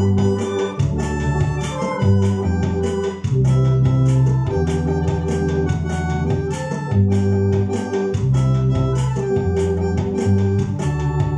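Two-manual electronic organ played with both hands: sustained chords over held bass notes that change every second or so, with a steady beat running underneath.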